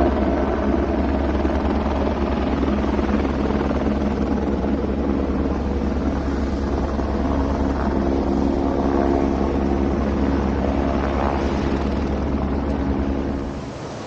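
Helicopter rotor and engine drone, steady and loud, cutting in and out abruptly.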